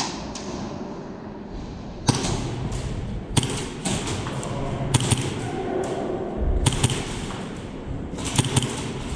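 Airsoft gas blowback pistol, a Tokyo Marui Hi-Capa run on HPA, firing single shots as sharp cracks: about half a dozen at irregular intervals of a second or so, a couple of them in quick pairs.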